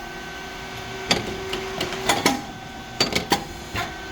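Rice cake popping machine running: a steady machine hum with irregular sharp clicks and knocks, several in quick pairs.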